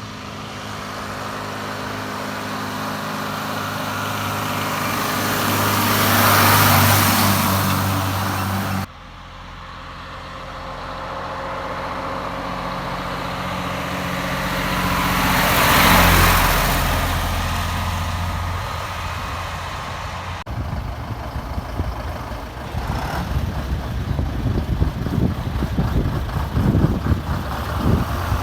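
Vintage Krupp diesel lorries driving past one after another, each engine growing louder to a peak as it nears and then fading, with abrupt cuts between them. In the last third a diesel lorry engine runs close by with a fast, uneven pulsing beat, getting louder.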